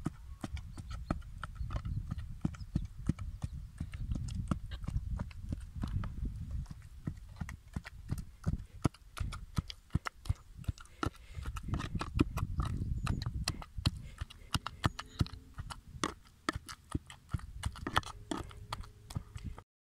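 A hand pestle pounding cooked lamb, potatoes and beans in a metal pot, a quick, uneven run of repeated thuds as the abgoosht solids are mashed into a paste (goosht koobideh).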